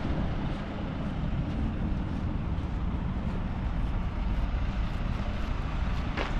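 Steady rumble of road traffic, with a short sharp sound about six seconds in.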